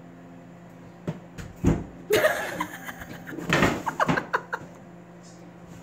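A couple of dull thumps about a second in, then a person laughing loudly in two bursts, over a steady low hum.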